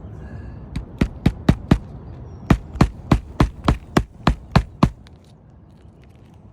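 Hammer striking roofing nails on asphalt shingles: two runs of quick strikes, about five and then about nine, roughly three a second.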